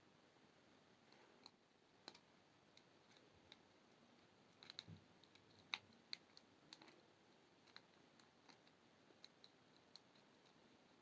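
Faint, irregular small clicks and ticks of wire-wrapping work: brass wire, jewelry pliers and beads being handled. They bunch together a little before the middle and then thin out.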